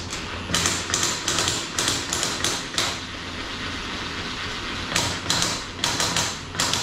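Quick sharp clicks or taps of hand-tool work on metal, about three or four a second, in two runs: one in the first three seconds and another from about five seconds in. A low steady hum runs underneath.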